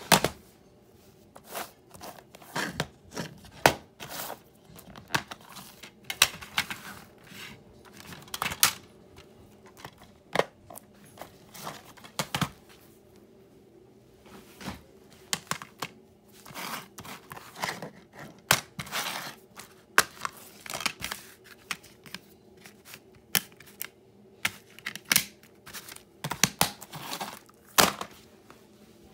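Plastic DVD cases being handled and set down on a wooden floor: an irregular run of sharp clacks, knocks and rustles, some loud, over a faint steady hum.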